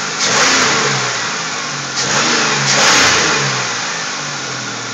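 2000 Pontiac Grand Prix V6 engine revved in three short throttle blips, rising and falling back toward idle between them. It is sounding good, the bad engine noise fixed after the valve covers went back on.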